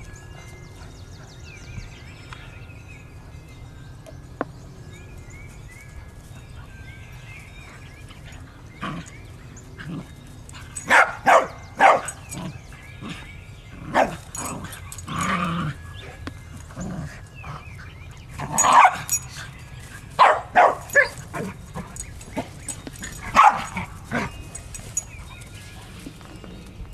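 Dogs barking during rough play: a run of short, loud barks, some in quick pairs, that starts about a third of the way in and stops shortly before the end.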